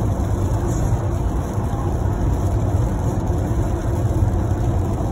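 Steady road noise inside a moving car's cabin at expressway speed: tyres running on a wet road with the engine underneath, a constant low rumble.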